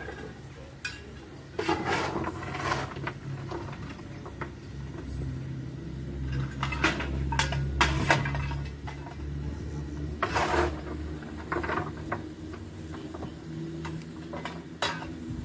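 Metal clanks and scrapes from a crew member working on the footplate of a narrow-gauge steam locomotive, coming irregularly with a busy cluster about halfway through, over a low steady hum.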